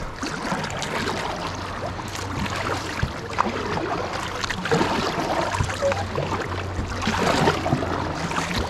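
Kayak paddles dipping and pulling through river water, with irregular splashing and dripping from the blades as the strokes go on.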